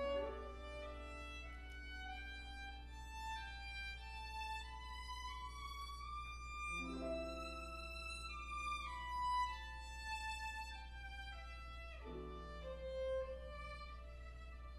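Violin playing a slow melody of long held notes, over lower sustained chords that change about every six seconds, with a steady low hum underneath.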